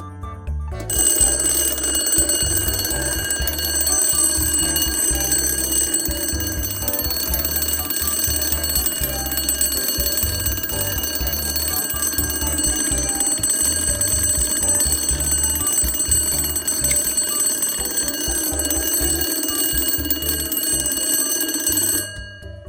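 The mechanical twin metal bells of an attitude BWPM Design alarm clock ringing in one continuous, steady, loud ring. It starts about a second in and cuts off suddenly near the end.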